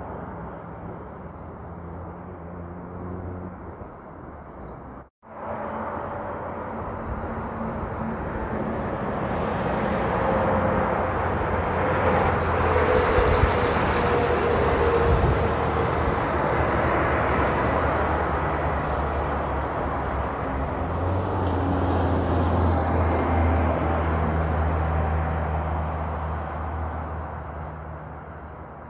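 Heavy trucks passing on the road: engine running with tyre and road noise. After a brief dropout about five seconds in, it grows louder, stays loud through the middle and fades near the end.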